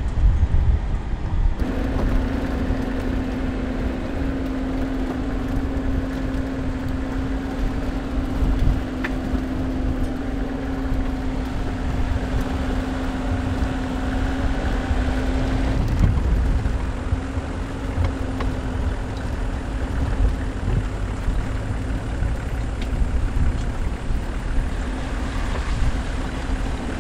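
Mercedes-Maybach G 650 Landaulet's twin-turbo V12 running at a steady, unchanging engine speed as the vehicle drives slowly off road, over a constant low rumble.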